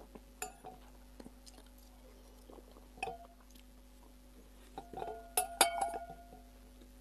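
Metal spoon clinking against a glass soup bowl a few times, the loudest clinks coming close together about five and a half seconds in, each with a short ring; quiet chewing of bread between.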